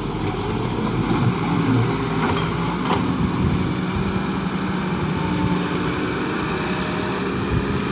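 Doosan excavator's diesel engine running steadily while working, with two brief clicks about two and a half and three seconds in.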